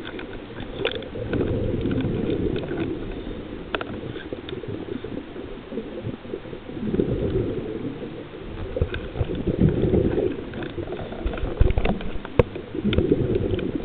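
Underwater camera audio: a low, uneven rumble of water moving around the camera that swells and fades every few seconds, with scattered faint clicks.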